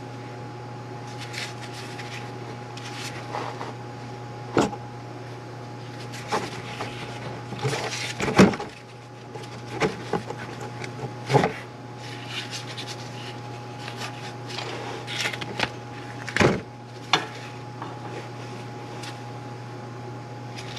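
Scattered knocks, clicks and rubbing of hand tools and a serpentine belt being levered off its tensioner and pulleys, the loudest knock about eight seconds in, over a steady low hum.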